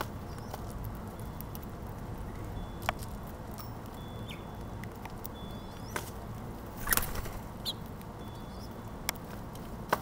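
House finch pecking seed at a plastic hopper feeder: scattered sharp clicks and taps of its beak on seed and tray, with a small cluster about seven seconds in, over steady low background noise.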